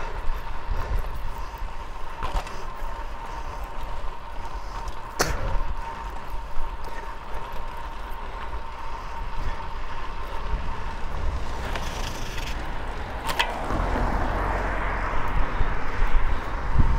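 Fixed-gear bicycle being ridden: wind rumbling on the rider's microphone over tyre and road noise, with a faint steady whine. There are two sharp clicks, and a rushing noise swells up near the end.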